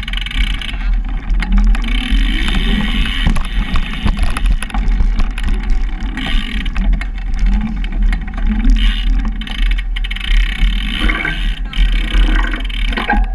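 Bike riding along a narrow indoor wooden track, heard from a camera on the bike: a constant low rumble and rattle from the tyres and frame, with frequent clicks and knocks.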